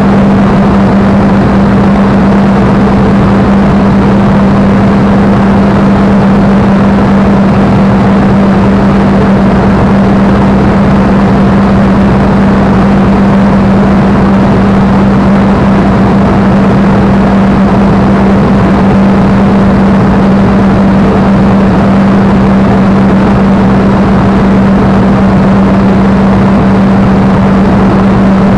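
Spitfire's V12 piston engine running at a steady power setting in level flight, heard from inside the cockpit. It is loud and constant: one steady low hum over a dense roar of engine and airflow noise.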